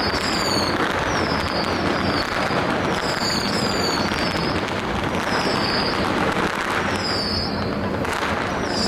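Strings of firecrackers crackling densely and without a break, with a high whistle that falls in pitch sounding again and again over the top.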